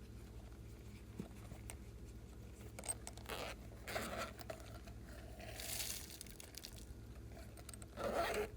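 Glossy slime being worked by hand, giving sticky tearing, crackling sounds in a few short bursts, the loudest near the end.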